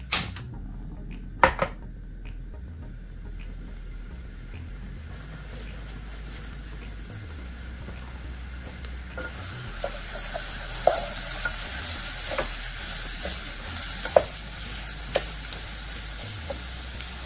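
Chopped onion, garlic, ginger and green chili frying in ghee and oil in a saucepan, the sizzle growing louder from about five seconds in, with a wooden spatula stirring and knocking against the pan. Two sharp knocks in the first couple of seconds.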